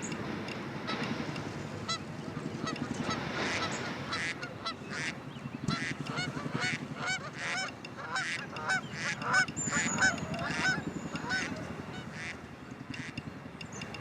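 A flock of geese honking, with many short calls one after another over a low, steady chatter. The calls come thicker and louder around the middle and thin out toward the end.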